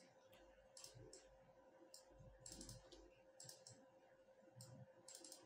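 Faint computer mouse clicks, several in quick pairs like double-clicks, spaced irregularly, over a faint steady electrical hum.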